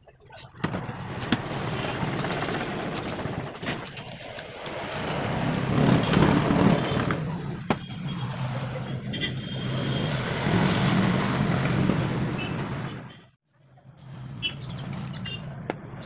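A motor vehicle engine running, getting louder through the middle and cutting off suddenly near the end.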